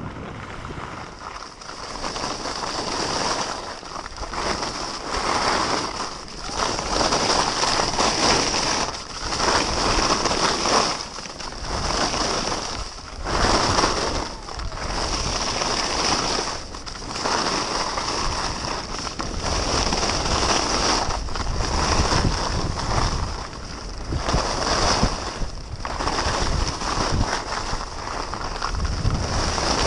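Wind rushing over an action camera's microphone and skis hissing and scraping over the snow during a fast downhill ski run, the noise swelling and dipping every second or two.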